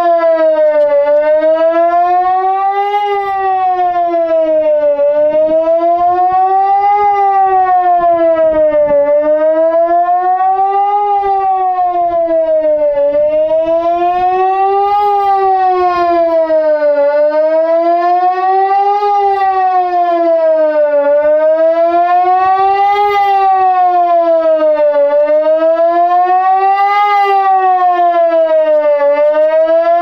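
APEX 4 electronic siren sounding the Swiss general alarm at the yearly siren test. Its loud tone rises and falls smoothly and regularly, about two seconds up and two seconds down.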